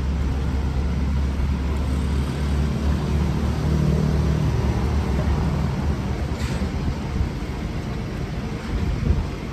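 Low, steady rumble of road traffic, with a vehicle engine's hum swelling about three to four seconds in; the rumble eases off near the end.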